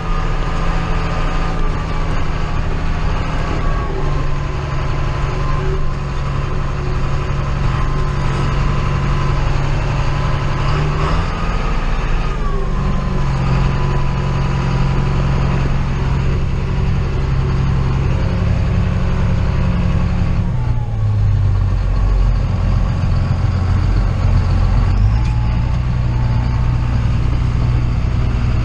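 Ford dump truck engine running as the truck is driven, its engine speed shifting in steps several times.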